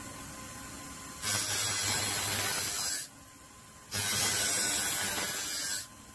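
Small DC-motor mini disc sander grinding the end of a steel hex key pressed against its sanding disc: two hissing sanding passes of about two seconds each, with a short pause between them where only the motor's faint running is left.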